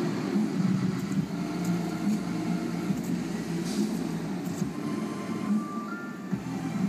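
Music playing from a car stereo through the car's open doors, heavy in the low end with a steady beat.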